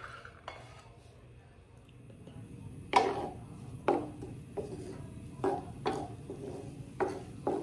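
Wooden spoon knocking and scraping against a nonstick frying pan while stirring sliced ginger in melted butter. Short knocks come about once or twice a second from about three seconds in.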